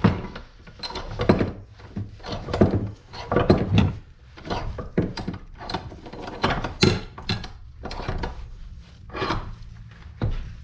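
A seized, ungreased brake caliper slide pin being twisted and pried out of its bracket with a pry bar: a string of irregular metal clicks, knocks and scrapes, the strongest about three and a half and seven seconds in.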